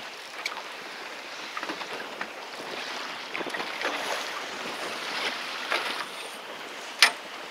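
Wind and sea wash on an open fishing boat, with a sharp knock about seven seconds in.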